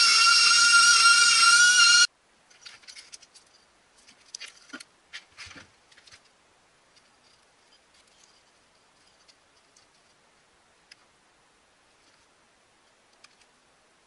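Flexible-shaft rotary tool running at a steady high speed, a loud whine engraving into wood, which cuts off suddenly about two seconds in. After it come faint light clicks and handling noises, then only scattered soft ticks.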